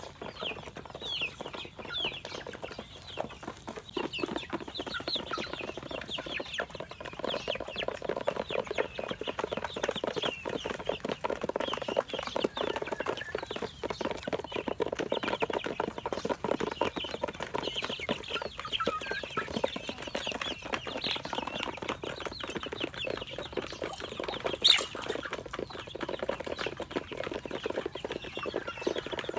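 Young chickens peeping with many short, high, falling chirps while they peck grain from a plate, with quick tapping of beaks throughout. One sharper knock near the end.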